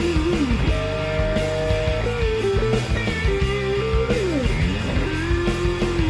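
Guitar-led background music: held lead notes that bend and slide in pitch over a steady beat and bass.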